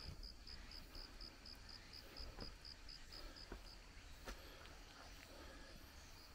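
Faint insect chirping: a thin high pulse repeating about four times a second, which stops a little past halfway. A few faint clicks sound near the middle.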